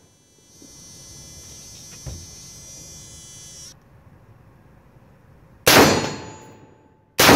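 Electrical buzzing from the camera for about three seconds, stopping abruptly, with a faint knock in the middle; then two rifle shots from the MGS Firearms Citizen rifle, about a second and a half apart, the second right at the end.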